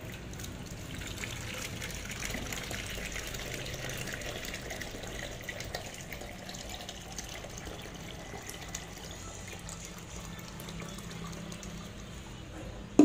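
A steady stream of water poured from a stainless steel kettle into a clear plastic container, filling it, with a sharp knock at the very end.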